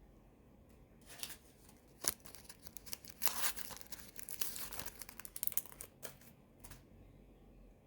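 Rustling and crinkling handling noise with a few sharp clicks, busiest from about three to five and a half seconds in.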